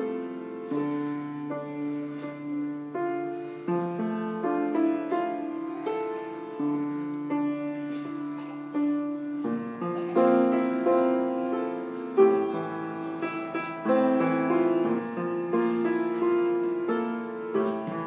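Grand piano played live: a slow piece in full chords, each held a second or more over long sustained bass notes.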